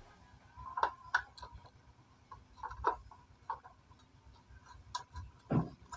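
Screwdriver working the screws out of a flat-screen TV's stand bracket: a run of small, irregular clicks and ticks from the tip turning in the screw heads.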